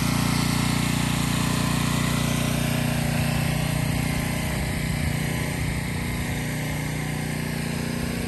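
Small gasoline engine of a pressure washer running steadily.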